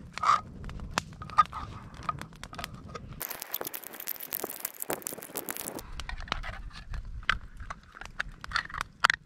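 Can opener on a flat steel card-style survival multitool being levered around the rim of a tin can, cutting the lid open in a run of sharp metal clicks and scrapes. For a couple of seconds in the middle the clicks come faster over a steady hiss.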